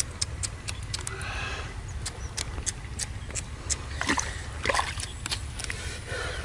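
Splashing and sloshing in shallow canal water, with many irregular sharp clicks and a few louder splashes around a second in and again about four to five seconds in, over a steady low rumble.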